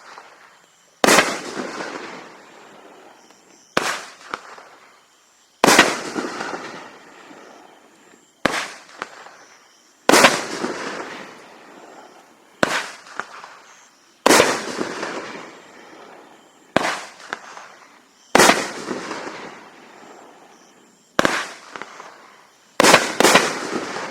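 Consumer firework cake firing shot after shot, about a dozen sharp reports two to three seconds apart. Each report trails a hiss that fades over a second or two as the Nishiki willow shells with silver fish break. Near the end two shots go off in quick succession.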